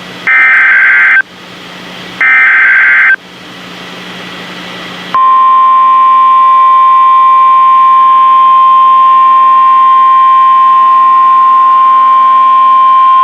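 Two bursts of Emergency Alert System SAME header data, a rapid digital warble about a second long each, a second apart. About five seconds in, the NOAA Weather Radio 1050 Hz warning alarm tone begins, one loud steady pitch that holds, signalling a tornado warning.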